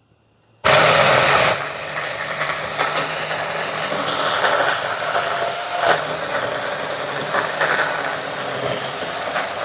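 Cordless electric mini chainsaw on a pole switching on about half a second in and cutting through a tree branch: a loud, dense buzz for about a second, then a slightly lower, uneven running sound as the chain works through the wood.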